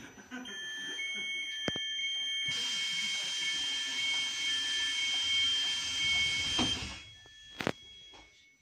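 Door-closing warning signal of an EN57 electric multiple unit (EN57-1826): a steady electronic tone with repeating beeps over it, joined for about four seconds by a loud hiss, then a single thump near the end as the double doors shut.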